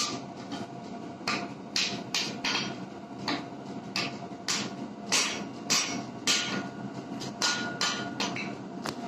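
Hand hammer striking a glowing Damascus steel billet on an anvil: a steady run of sharp blows, about two a second.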